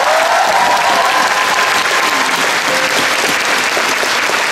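Theatre audience applauding steadily. High-pitched cheering voices ride over the clapping and fade out about two seconds in.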